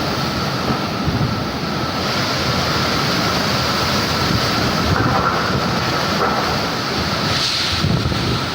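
Strong storm wind blowing across the microphone: a steady, loud rushing noise, with a faint steady whine running through it.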